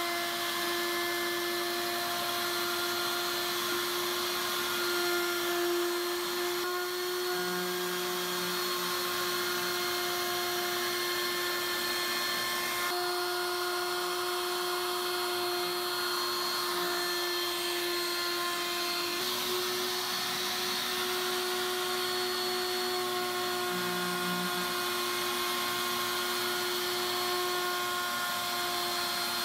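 Table-mounted router spinning a 3/8-inch roundover bit: a steady high motor whine with the rasp of the cutter taking a roundover along the edges of an oak clamp arm.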